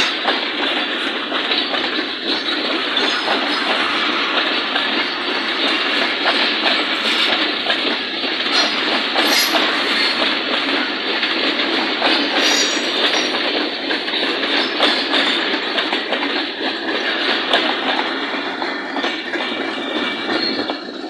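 Pakistan Railways express passenger coaches rolling past close by, a loud steady rumble with the wheels clattering over rail joints and pointwork.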